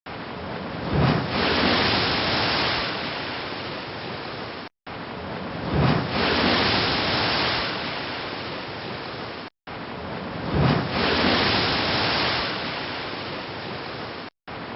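Sea waves breaking on a shore, each wave surging and then washing out over about five seconds. The same short stretch repeats three times as a loop, with a brief moment of silence between repeats.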